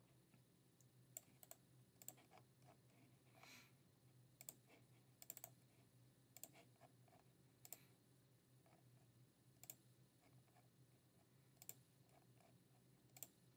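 Faint, scattered clicks from a computer mouse and keyboard, about a dozen spread unevenly, over a low steady hum.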